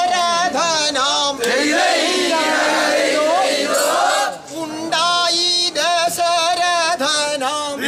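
Call-and-response chant by a boat-race crew: one man calls out a chanted line and the group of men answers together, then he leads again about five seconds in.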